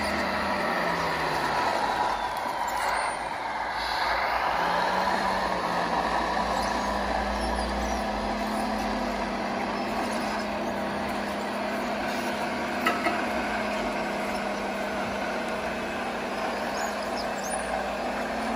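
Radio-controlled scale model trucks running, a steady mechanical engine-like drone with a pitch that sweeps down about three seconds in, and a short sharp click about two-thirds of the way through.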